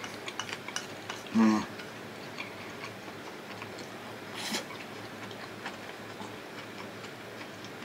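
A person eating: faint chewing with small clicks of mouth and utensils. There is a short hum about one and a half seconds in and a brief breathy rush about four and a half seconds in.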